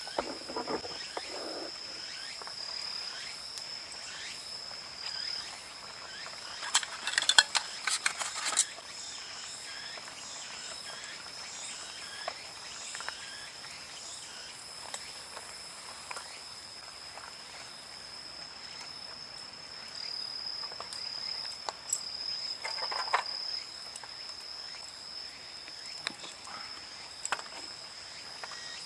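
Insects, crickets by their sound, trilling steadily on one high note. Clusters of sharp clicks and knocks cut in about seven seconds in and again around twenty-three seconds.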